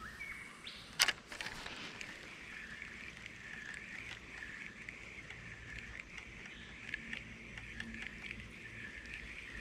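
Rainforest creek ambience: a steady, slowly wavering high-pitched chorus from the surrounding bush, with a sharp click about a second in.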